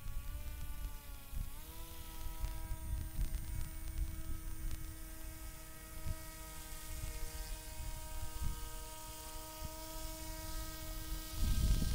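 Steady whine of small electric motors that steps up in pitch about a second and a half in, over a low rumble that grows louder near the end.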